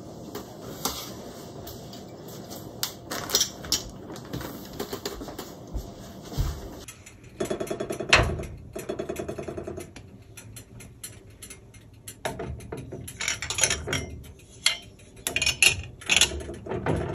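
Glass canning jars with metal lids clinking and knocking against each other and against a pressure canner as they are lowered in with a jar lifter. There is a loud knock and a short rapid rattle about halfway through.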